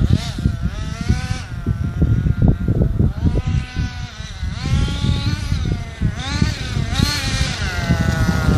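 Motor of a CEN Fun Factor ST radio-controlled truck, its whine rising and falling in pitch as the truck accelerates and slows, over a rough low rumble.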